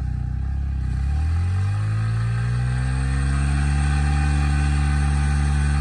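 Yamaha MT-15's 155 cc single-cylinder engine revving up over about two seconds, then held at high revs while the rear tyre spins in the dirt in a stationary burnout.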